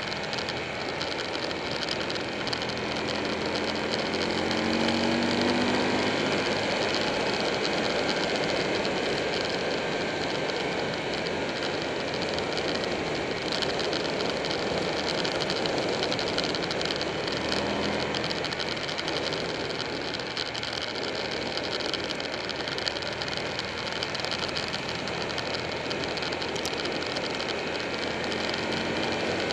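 Buell 1125R's V-twin engine running at road speed under heavy wind and road noise. Its note climbs briefly a few seconds in and again past the middle as the bike accelerates out of the curves.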